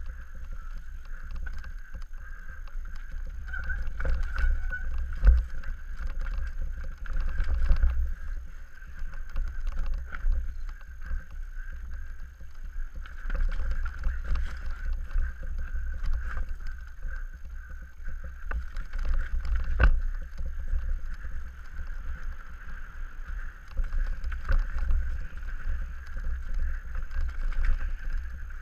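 Downhill mountain bike (Scott Gambler) running fast down a rough dirt trail, heard through a helmet-mounted GoPro: a steady low wind and trail rumble with a constant high buzz, broken by sharp knocks and rattles as the bike hits rocks and roots.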